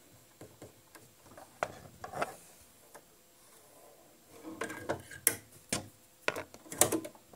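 Elna Excellence 680+ sewing machine's automatic needle threader being worked: a couple of faint clicks, then a quick run of sharp mechanical clicks and clacks in the second half as the threader is operated and the needle gets threaded.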